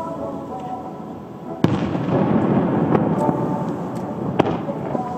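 Aerial firework shells bursting: a sharp bang about one and a half seconds in, the loudest, and another about four seconds in, with smaller reports between, each followed by a long rolling rumble.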